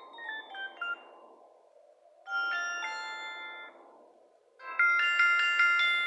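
ZTE C332 MIDI ringtones played on a Multilaser P9091 phone, one short clip after another, over a faint hiss. A falling run of electronic notes dies away about a second in, a held chord of bright tones follows, and near the end comes a clip of quickly repeated chords.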